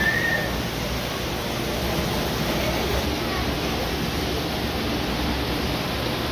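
Steady water-like rushing with a low hum from the aquariums' running filters and bubbling air stones.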